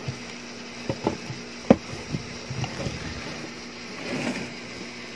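A cardboard product box being handled close to the microphone: a few soft knocks and taps, one sharper near the middle, over a steady low hum.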